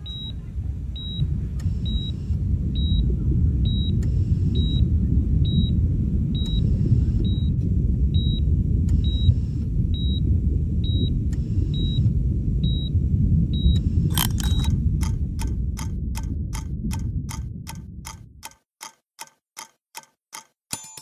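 A steady low rumbling drone with a short, high electronic beep about once a second, like a heart monitor. About 14 s in, the beeping stops and an even clock-like ticking, about two ticks a second, takes over while the drone fades out near the end.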